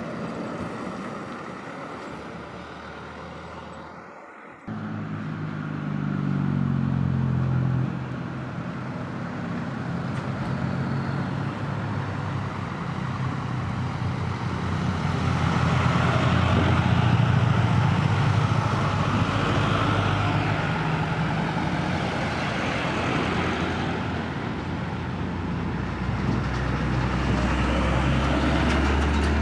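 Trucks and other road traffic passing: a low engine note and a rushing noise of tyres that builds to its loudest a little past the middle, then eases. A sudden brief drop-out about four and a half seconds in.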